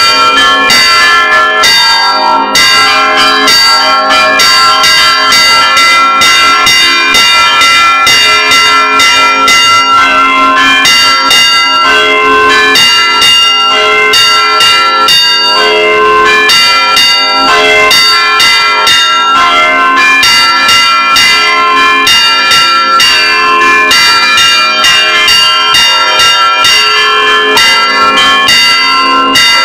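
Church bells rung by hand in a fast, unbroken repique, several strikes a second with their ringing tones overlapping. Loud and close, as heard from inside the bell tower.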